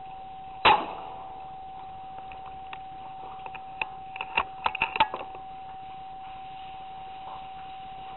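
A single rifle shot fired from a night-vision-scoped rifle, followed a few seconds later by a quick run of sharp mechanical clicks from handling the rifle. A steady high electronic whine runs underneath.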